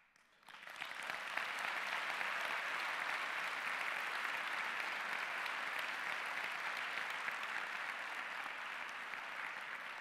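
Audience applauding: dense clapping that swells up during the first second or so, holds steady and eases off a little near the end.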